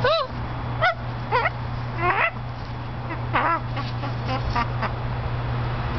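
Blue-and-gold macaw giving a run of short squawks, about five in the first four seconds and a few smaller ones after, each arching up then down in pitch.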